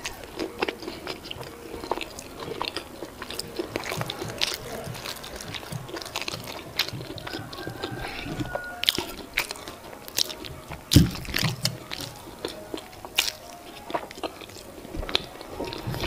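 Close-up chewing of boiled yam and eggplant (garden egg) sauce: many small wet clicks of lips and tongue as the mouthful is worked, with one louder, deeper thump about two-thirds of the way through.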